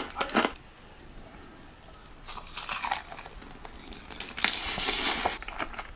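Close-up crunchy chewing of crispy fried stuffed tofu (tahu isi), in three bursts: right at the start, about two and a half seconds in, and a longer one about four and a half seconds in.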